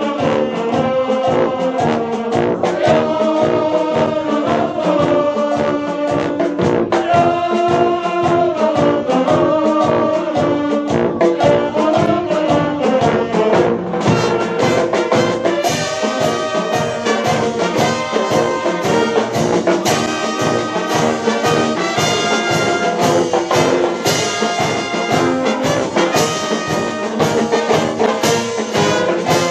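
Dweilorkest street brass band playing live: trumpets, trombones, saxophones and sousaphone over snare and bass drum with a steady beat. About halfway through, bright clashing strokes on every beat join in, about two a second.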